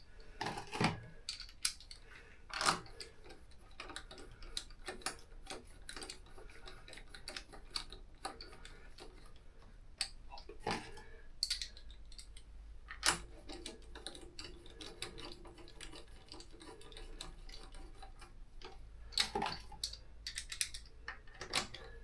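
Sparse metallic clicks, clinks and taps from hand work on a motorcycle wheel, as wheel bolts and tools are handled, coming at irregular intervals with a few louder knocks.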